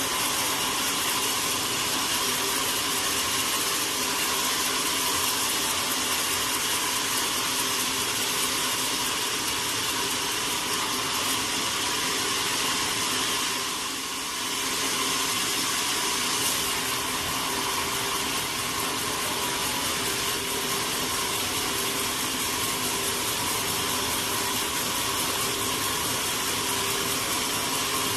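Sawmill machinery running steadily: a continuous mechanical whir with a few constant tones over it, dipping briefly about halfway through.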